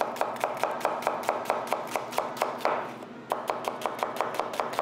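Chef's knife rapidly slicing an onion into julienne strips on a cutting board: quick, even knocks of the blade, about six or seven a second, with a short break a little past halfway.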